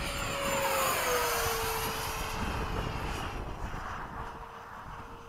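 Electric ducted fan of an RC F-15 jet (a 13-blade rotor on a 1600kv inrunner motor) whining past at speed: its tone drops in pitch about a second in as it goes by, and the whoosh then fades. Wind rumbles on the microphone underneath.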